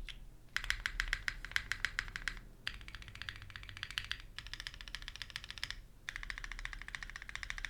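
Custom mechanical keyboard (Gok Venn, polycarbonate plate, lubed Kailh x NK Cream linear switches, GMK keycaps) with keys spammed in rapid presses. There are four runs of fast clicking, each a second or two long with short pauses between, and the click tone changes from run to run.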